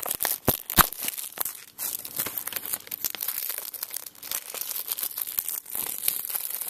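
Plastic shrink-wrap on a Blu-ray case crinkling and tearing as it is cut with scissors and pulled off, with two sharp snaps a little under a second in.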